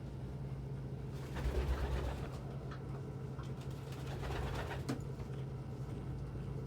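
Domestic pigeons cooing, over a steady low hum, with a couple of brief rustling noises.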